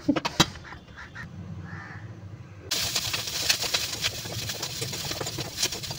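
A few knocks, then about three seconds in a loud sizzling and crackling starts suddenly: food frying in a kadai on a gas stove as it is stirred.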